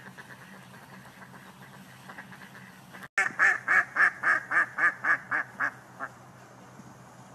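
Ducks quacking: faint quacks at first, then a fast run of about ten loud quacks, about four a second, that stops abruptly.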